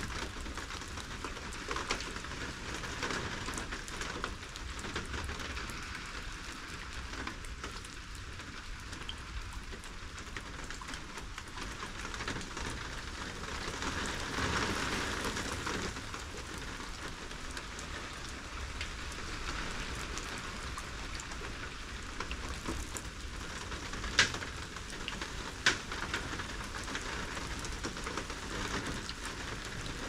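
Steady rain falling, with many single drops ticking through the hiss. The rain swells briefly in the middle, and two louder drops strike sharply about a second and a half apart near the end.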